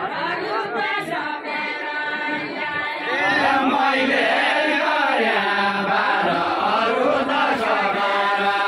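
Group of men singing a Nepali deuda folk song together, several voices overlapping, growing louder about three seconds in.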